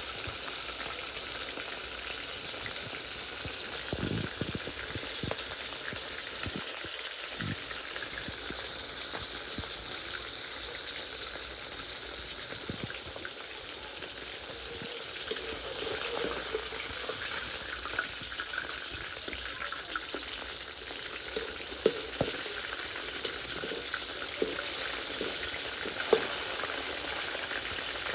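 Food deep-frying in a pan of hot oil, a steady sizzle, with a few sharp knocks scattered through it.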